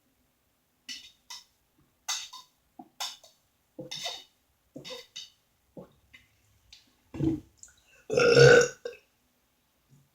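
Close-miked eating sounds: a run of short, wet mouth smacks, then a loud burp lasting almost a second, about eight seconds in, which is the loudest sound.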